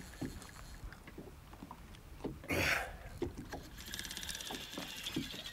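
Small knocks and slaps of water against the boat's hull, with a short loud rush of noise about halfway through. In the last second and a half, the fast, even ticking buzz of a fly reel's drag as a running tarpon pulls line off the reel down to the backing.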